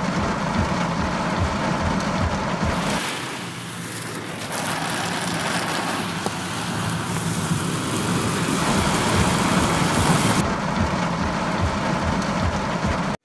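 Heavy rain drumming on a car's windshield and roof, heard from inside the car, mixed with the rush of muddy floodwater. The noise is loud and steady, changing abruptly in tone about three seconds in and again about ten seconds in.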